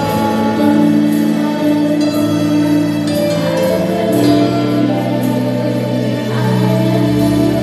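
Gospel worship music: voices singing over long, held instrumental chords.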